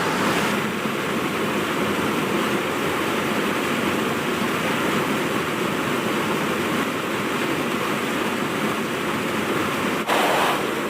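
Waterfall rushing steadily, a constant even roar of falling water. About ten seconds in it breaks off abruptly into a slightly louder, brighter rush.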